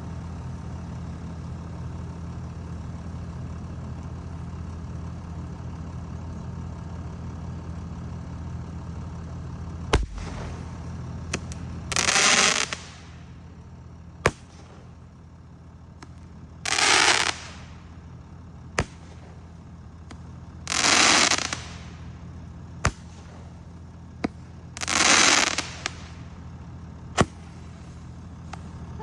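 A strobe Roman candle firing its shots, four short hissing bursts roughly four seconds apart, with sharp single cracks between them. A steady low hum runs underneath during the first half.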